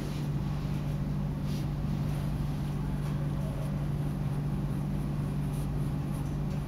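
Steady low hum with an even hiss of background machine noise in a room.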